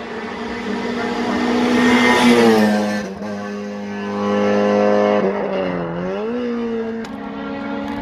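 Rally car accelerating hard past at high revs, loudest about two seconds in as it goes by; the engine note drops and climbs again as it shifts up through the gears.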